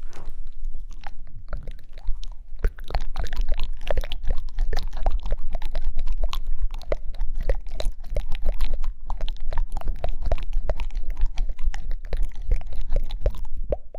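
ASMR mouth sounds close to the microphone: a rapid, irregular run of wet clicks and smacking pops, several a second, thickening after the first few seconds.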